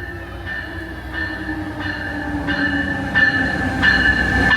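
Amtrak Pacific Surfliner train pulling into the station and slowing. A high-pitched squeal grows louder toward the end over the rumble of the train, and a lower note slowly falls as it slows.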